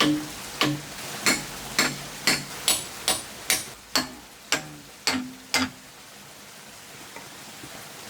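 Hammer striking a steel chisel about twice a second, each blow ringing briefly, chipping out concrete that beds the base of a cast turbine housing. The blows stop a little before six seconds in, leaving a steady hiss.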